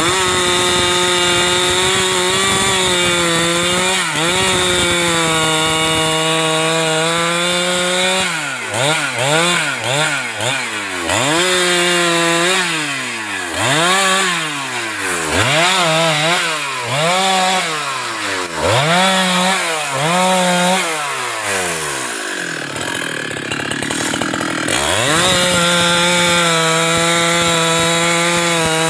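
Husqvarna 394XP two-stroke chainsaw cutting through a klumpit log at full throttle. After about eight seconds it is blipped up and down again and again, about once a second, then drops briefly toward idle. Near the end it opens up to a steady full-throttle cut again.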